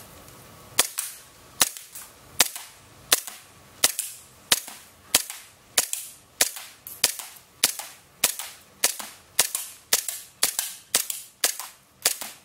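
SOCOM Gear M9 green-gas airsoft pistol firing a string of single shots, each a sharp pop, about one and a half a second at first and quickening to about two a second near the end.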